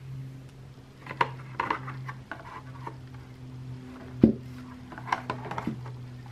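A paintbrush tapping and scraping on the rim of a paint can, then the brush and can clattering against a plastic paint tray on a table, the sharpest knock about four seconds in. A steady low hum runs underneath.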